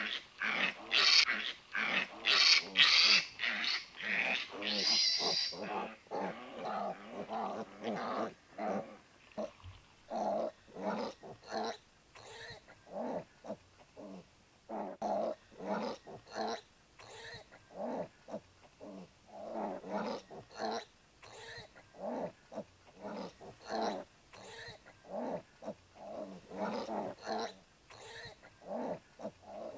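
Piglets grunting and squealing: a cluster of loud, high squeals in the first few seconds, then a steady run of short grunts.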